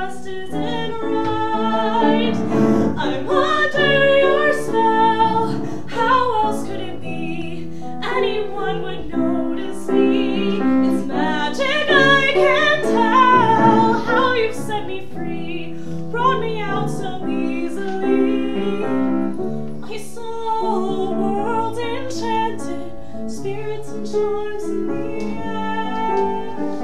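A woman's solo voice singing a ballad, accompanied by a grand piano.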